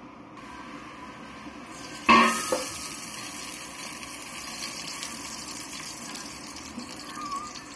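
Cooking oil poured from a small steel cup into a hot, still-wet stainless steel pot: a sudden loud sizzle about two seconds in, then steady sizzling and spattering.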